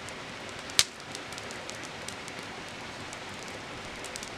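Wood campfire crackling, with scattered small pops and one sharp loud pop about a second in.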